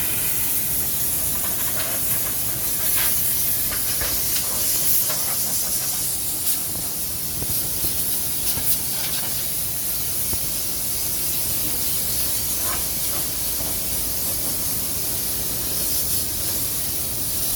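Loud, steady hissing noise, strongest in the highest pitches, with a few faint clicks scattered through it.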